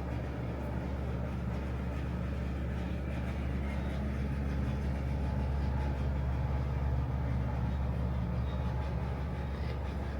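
Steady low mechanical hum with several held low tones, unchanging throughout.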